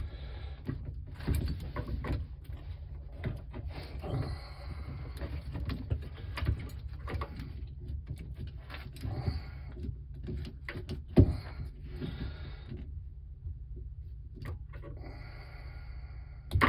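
Hands and tools handling parts at close range: irregular rustling and scraping with scattered small clicks, and one sharp click about eleven seconds in.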